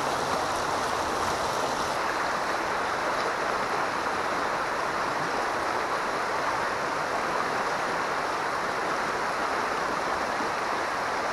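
River current rushing over rocks, a steady even rush with no breaks.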